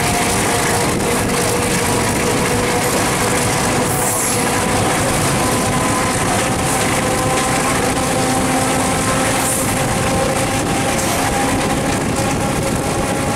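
Diesel locomotive running at speed, heard from right beside it: a steady engine drone with a few held tones over a loud, even rushing noise of air and wheels on rail.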